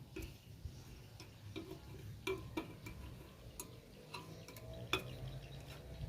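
Irregular light clicks and taps of kitchen utensils against a metal cake mould, about ten in all, the sharpest a little before the end, over a low steady hum.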